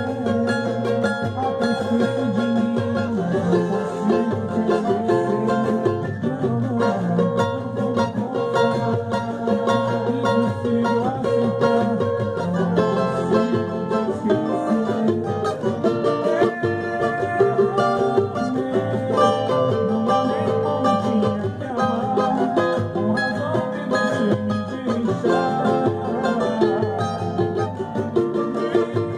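Instrumental music on plucked string instruments: a continuous run of quick picked notes over a steady rhythm.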